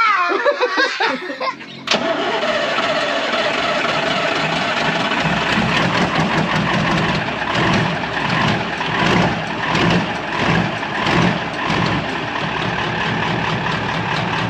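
MAN KAT expedition truck's air-cooled Deutz V8 diesel engine running, coming in suddenly about two seconds in and swelling and easing unevenly through the middle.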